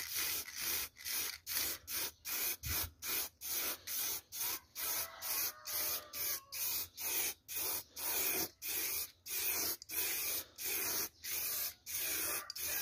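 Aerosol spray-paint can sprayed in short, quick bursts, about two a second, each a brief hiss. The bursts are kept short so that the paint does not run.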